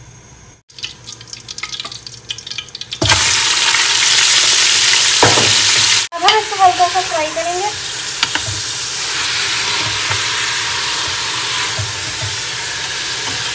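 Mutton sizzling in hot oil with cumin seeds in an aluminium pressure cooker, stirred with a wooden spoon. The first seconds hold only a faint crackle of the seeds in oil; then a loud, steady sizzle begins suddenly about three seconds in and keeps going.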